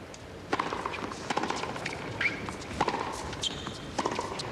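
Tennis rally on a hard court: sharp pops of the ball being served and hit back and forth by rackets, with ball bounces between strokes, starting about half a second in. A few brief high squeaks come between the hits.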